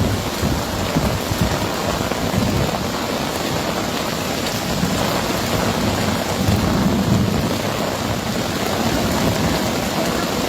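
Heavy rain pouring steadily, a dense even hiss with a low rumble underneath that swells for a while near the middle.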